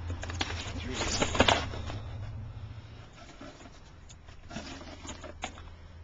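Handling and rummaging through boxed refrigeration parts: a cardboard filter-drier box rustling and rubbing against other boxes for the first two seconds over a low hum, then a few light clicks and knocks.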